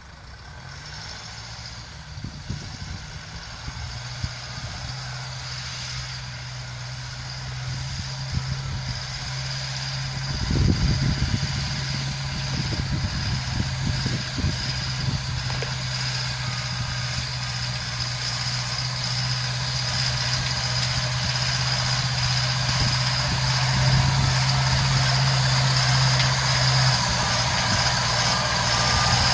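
Deutz-Fahr Series 5 tractor's four-cylinder diesel engine pulling a cultivator through soil, with a steady engine note that grows louder as the tractor approaches. A few thumps and rattles come about ten seconds in.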